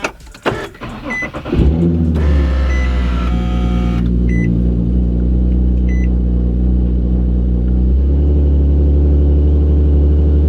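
Infiniti G37's VQ37VHR V6 cold-started through catless headers. The starter cranks for about a second and a half, then the engine catches and settles into a steady fast idle with no exhaust-leak tick, the stripped manifold stud now repaired. A dash chime beeps several times in the first six seconds, and the idle note shifts slightly about eight seconds in.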